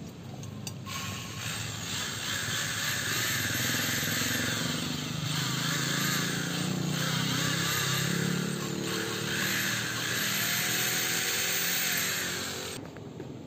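Yamaha Mio i 125 exhaust valve being lapped into its seat with coarse grinding compound: a steady, gritty grinding that starts abruptly about a second in and stops abruptly near the end.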